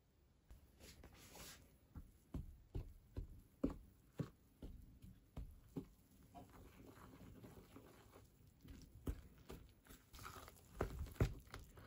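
Spoon stirring flour into wet grated-zucchini batter in a ceramic bowl: soft scraping with a run of light knocks of the spoon against the bowl.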